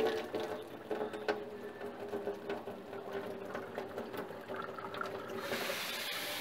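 Water ionizer running water out of its spout into a stainless steel sink, with a steady mechanical hum and a few sharp clicks. About five seconds in, a louder, even hiss of running water takes over as the tap's diverter is turned and water pours from a hose into the sink.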